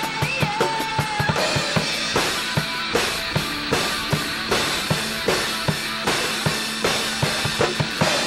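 Rock music carried by a drum kit: a steady beat of bass drum and snare hits with cymbals washing over it, and a sustained lower note underneath.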